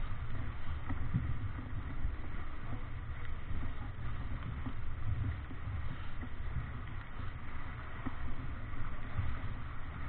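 Wind buffeting the microphone in an uneven low rumble, over the rush and splash of choppy water along the hull of a sailing yacht heeled hard upwind.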